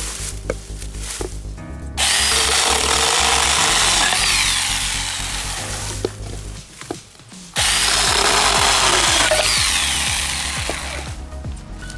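Cheap cordless mini chainsaw cutting through a green bamboo pole in two passes: the first starts about two seconds in, and the second follows a short pause near the middle; each lasts about four seconds and fades as the cut finishes. Background music with a low bass line plays underneath.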